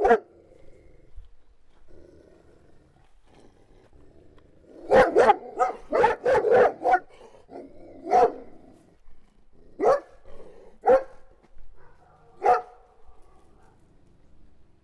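A dog barking: one bark right at the start, a lull of about four seconds with only a faint low rumble, then a quick run of about eight barks, followed by four single barks spaced a second or two apart.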